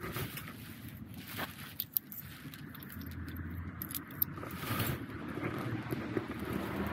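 Handling noise during a litter pick: footsteps on cobblestones and a plastic rubbish bag rustling, with a few sharp light clicks over a low steady rumble.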